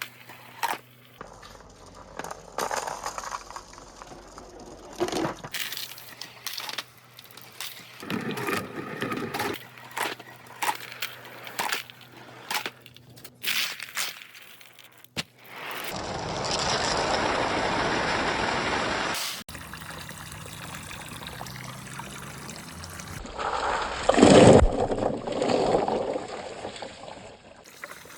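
Marbles clicking and knocking as they roll down wooden gutter chutes, then water poured down the chutes rushing steadily along with the marbles, loudest in a splash about three-quarters of the way through.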